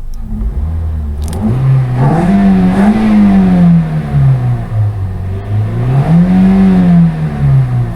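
2013 Toyota Corolla S's 1.8-litre four-cylinder engine, breathing through a K&N Typhoon cold air intake, revved twice: the engine note climbs to a peak about three seconds in, falls back, then climbs and falls again.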